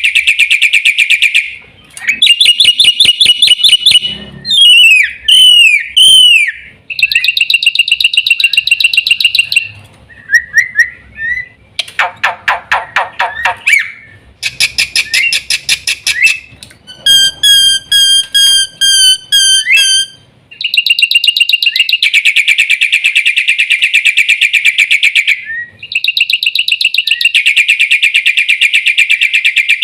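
Black-winged myna (jalak putih) singing a loud, varied song. Long fast rattling trills alternate with swooping whistled notes and a run of clear repeated whistles, broken by brief pauses.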